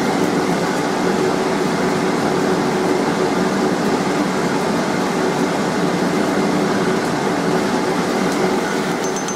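A forge running: a loud, steady rushing roar of air with a faint hum in it, no hammer blows.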